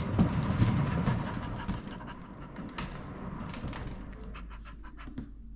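Wooden cat exercise wheel turning under a walking cat: a low rolling rumble with scattered clicks and taps from the wheel and the cat's steps on the carpeted track, loudest in the first couple of seconds and then easing off as the wheel slows.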